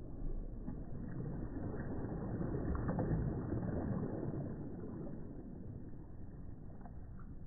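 A small wave breaking softly close by, swelling to a peak about three seconds in and then washing out and fading.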